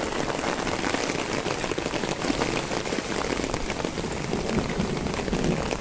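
Steady rain falling on standing water and wet ground, a dense even hiss of many small drop hits.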